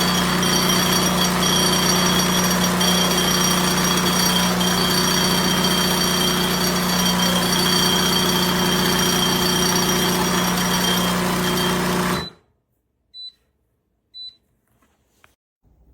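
Espresso machine running with a loud, steady buzz from its pump, cutting off about 12 seconds in, followed by two short high beeps about a second apart.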